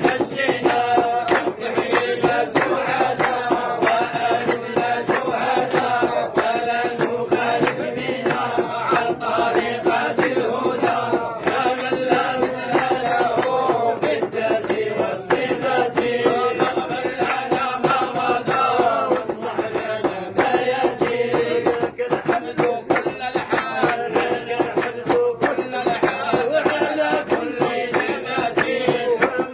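A group of men chanting Sufi dhikr and madih (devotional praise of the Prophet) together, a sustained melodic chant with long held notes.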